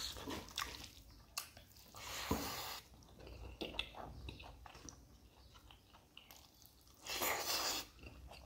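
Close-up chewing of a mouthful of rice and spicy mutton innards, eaten by hand: soft wet mouth clicks, with two louder spells of noise about two and seven seconds in.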